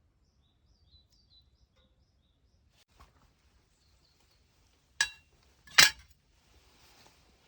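Two sharp metallic clinks, about a second apart, the first leaving a brief ring, as a small steel tool or workpiece is knocked or set down on a hard surface. Faint birdsong chirps early on.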